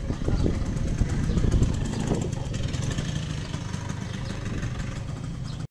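Classic Vespa scooter's two-stroke single-cylinder engine running as the scooter is ridden past and away, louder in the first couple of seconds, then steady. The scooter is on a test ride just after its leaking crankshaft seals were replaced.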